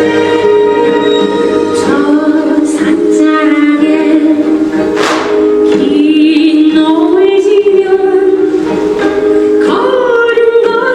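Music with singing: a sung melody, with some held notes, over a sustained accompaniment.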